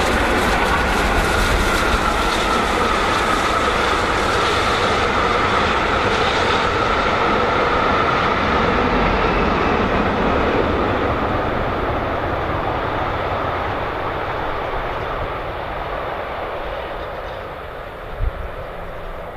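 Steam-hauled passenger train passing: LNER Peppercorn A1 Pacific 60163 Tornado and its rake of coaches running by on the rails. The noise holds steady for about ten seconds, then fades as the train moves away.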